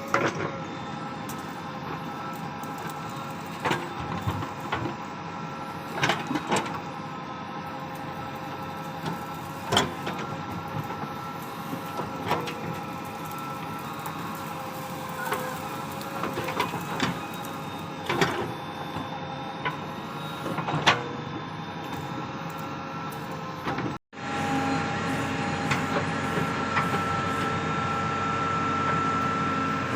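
Heavy-machinery diesel engine running steadily, with scattered clanks and knocks from loading work. About two thirds of the way through the sound cuts out for an instant and then comes back slightly louder.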